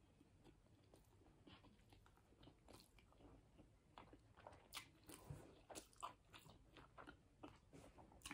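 Faint close-miked chewing with the mouth closed: soft, wet mouth clicks, more frequent in the second half.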